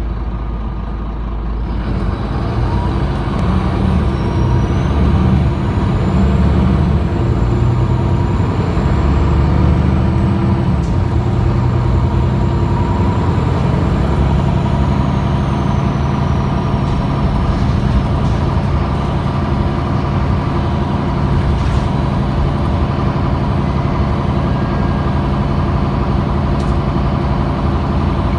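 MAN NL323F city bus heard from inside the cabin, its MAN D2066 diesel accelerating hard after a ZF EcoLife automatic kickdown about two seconds in. The engine pitch climbs and steps through several gear changes, then settles to a steady cruise, with a thin high whine rising and falling over it.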